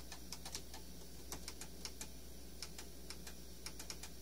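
Computer keyboard keys being pressed to navigate Windows: irregular clicky keystrokes, often two or three in quick succession, over a steady low computer hum.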